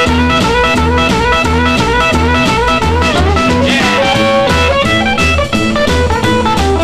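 Rockabilly instrumental break: electric guitar solo over bass and a drum kit keeping a steady beat.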